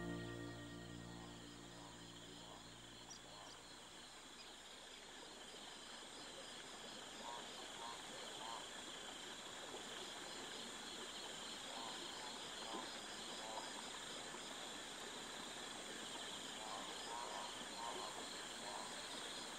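A music track fades out in the first couple of seconds. Then comes a faint, steady background hiss with thin high tones and a few soft chirps now and then.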